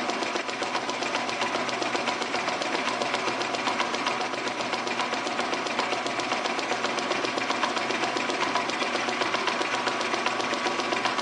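Metal lathe running steadily with the spindle turning a 2 1/4-inch belt pulley while the tool cuts its V-groove, a fast, even mechanical clatter.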